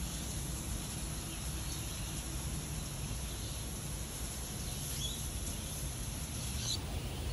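Steady outdoor background: a low hum and hiss with a constant high-pitched insect trill over it.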